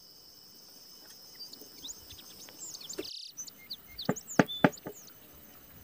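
Birds chirping in short falling calls over a steady high insect drone. The drone cuts off about three seconds in, and a few sharp knocks come in the second half.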